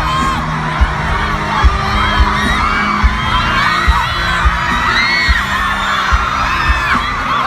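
Large crowd screaming and cheering over music with a steady low beat of about one to two thumps a second.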